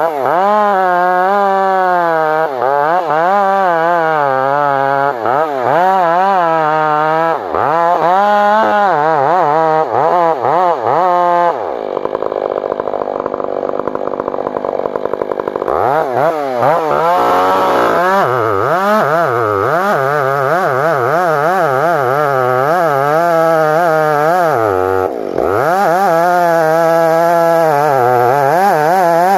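Chainsaw cutting into the base of a large standing conifer. The engine note wavers up and down as the chain bites and frees in the cut, briefly dropping in revs about a quarter of the way in and again near the end.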